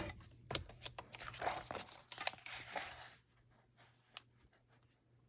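Paper being trimmed and handled: a run of short cutting and rustling sounds for about three seconds, then quiet with a single click about four seconds in.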